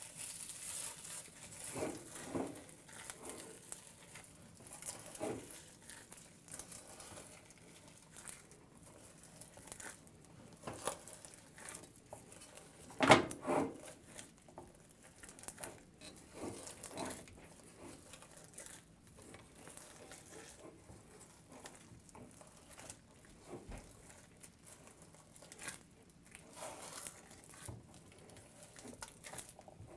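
A hand in a thin plastic glove kneading and squeezing cold, firm blocks of butter mixed with dried herbs in a pot: soft, irregular squishing and crinkling of the glove, with one louder knock about thirteen seconds in.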